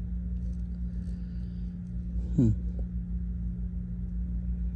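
Steady low hum of a car idling, heard from inside the footwell. About two and a half seconds in, a man gives one short grunt.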